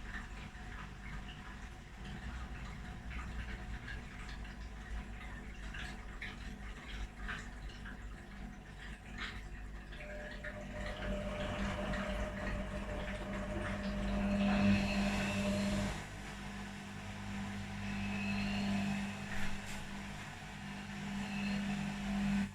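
Electrolux and Arctic washing machines running their quick wash programs with blankets inside: a steady motor hum over wet washing sloshing and small knocks as the drums turn, with a higher motor tone for several seconds midway.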